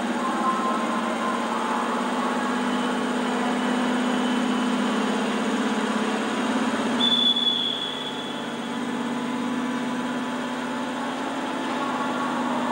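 Steady hum and rumble of a passenger train standing at a station platform, with a brief high tone about seven seconds in.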